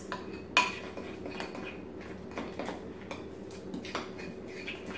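A spoon stirring a thick glue mixture in a mixing bowl, scraping and clicking against the bowl's sides in an uneven rhythm, with one sharper clack about half a second in.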